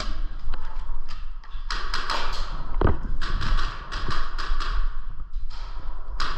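A run of sharp taps and clicks about two to three a second, from an indoor airsoft pistol game, with a dull thump about three seconds in.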